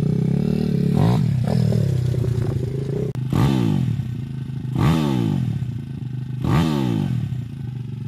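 Welsh Pit Bike 170 Detroit's 170cc four-stroke engine, running steadily at first and then having its throttle blipped four times about every second and a half, the revs falling back toward idle after each blip.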